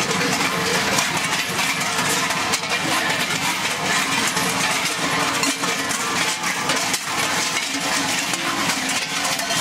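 Many large Krampus bells (cowbells) worn on the costumes' belts, clanging and jangling without pause as a crowd of Krampus walks past.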